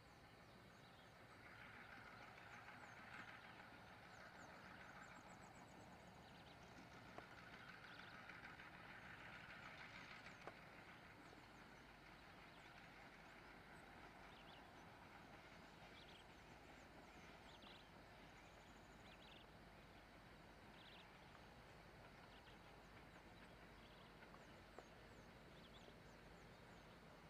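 Faint sound of a diesel freight train approaching from a distance: a low, steady engine hum, with a few light clicks past the middle.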